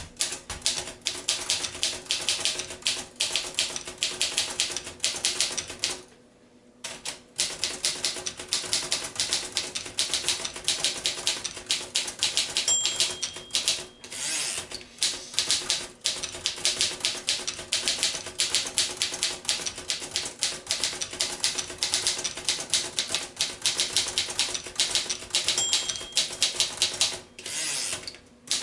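1940 Royal Varsity manual portable typewriter being typed on: rapid runs of key strikes. The typing pauses for about a second some six seconds in, and a short ringing tone sounds twice, near the middle and near the end.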